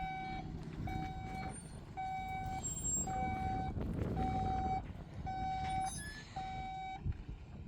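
Vehicle reversing alarm beeping steadily, about one beep a second, over a low engine rumble; the beeping stops about seven seconds in.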